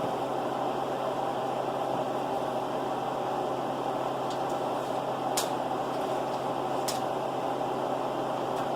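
Steady whir and hum of a fan-driven appliance running, with two sharp clicks about five and a half and seven seconds in.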